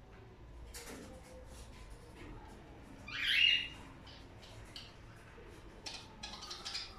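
A pet bird gives one loud, rising squawk about three seconds in, among faint scattered chirps and clicks.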